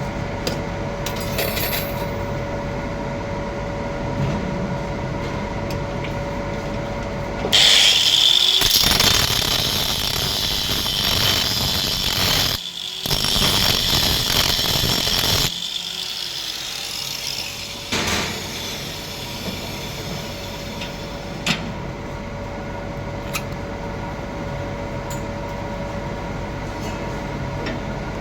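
Power tool, most like an angle grinder, running loud with a steady high whine for about eight seconds, pausing briefly partway through, then a short burst a few seconds later, over a steady workshop hum.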